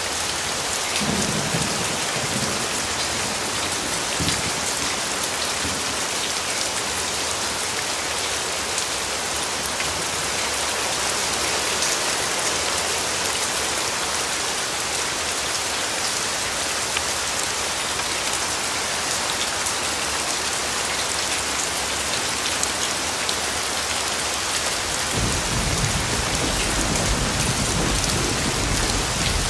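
Steady, heavy rain hissing as it falls on a wet street, with a low rumble joining near the end.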